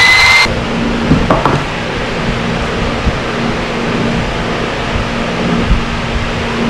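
A rising electronic tone cuts off half a second in. It leaves a steady hiss with a low hum, like a fan running, and a few light wooden knocks as a plywood frame is handled on the board, the clearest about a second in.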